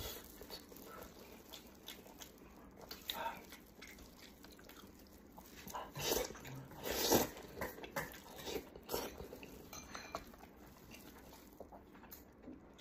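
Close-up eating of sheep's head meat: biting, tearing and wet chewing with mouth smacks, in scattered short bursts, loudest about six to seven and a half seconds in.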